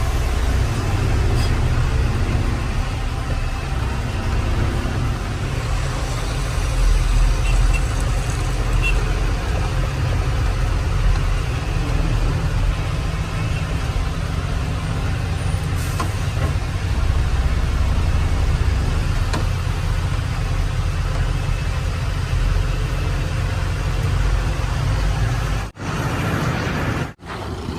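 Heavy diesel engine of earthmoving machinery running steadily with a deep low rumble, cutting out briefly twice near the end.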